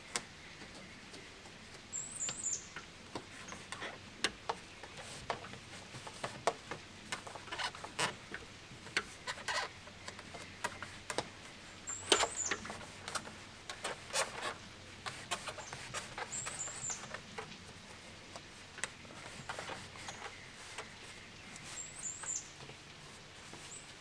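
Irregular crackling, rustling and scraping clicks as an insulation-wrapped plastic pipe is worked over an exhaust vent outlet on house siding. A bird gives a short, high, falling chirp four times.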